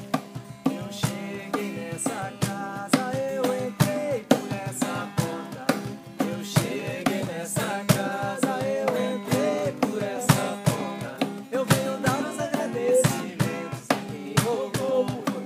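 Umbanda chant (ponto) for the Pretos Velhos: a sung melody over drums beating a fast, steady rhythm.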